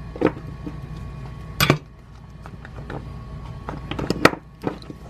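Metal hand tools, a soldering iron and pliers, clinking and knocking on a wooden workbench: a few sharp clacks, one about a second and a half in and a cluster around four seconds. A low hum stops at the first loud clack.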